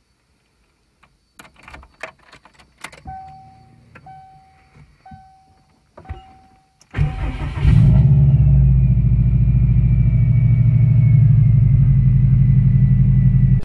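Key sliding into a Subaru Impreza's ignition with a few clicks, then four short dashboard chimes about a second apart. About seven seconds in, the Subaru flat-four cranks briefly, catches and idles loudly and steadily, with a faint whine slowly falling in pitch.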